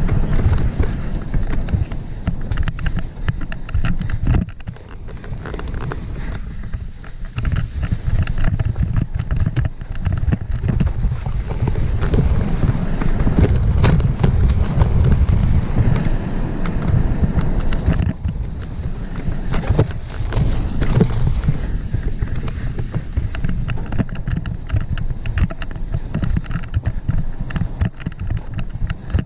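Wind buffeting a helmet-mounted camera's microphone as a full-suspension mountain bike descends fast down a rough dirt singletrack, with the rattle and knocks of the bike over bumps.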